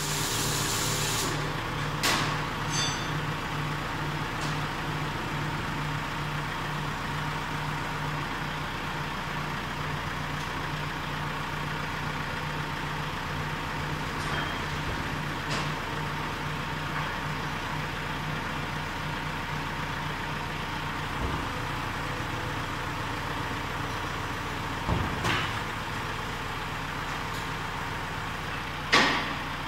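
Mitsubishi Fuso Canter tipper truck running steadily as its hydraulic ram raises the tipper body, a low even hum. A few knocks come about two seconds in and around twenty-five seconds, and a louder clunk comes just before the end.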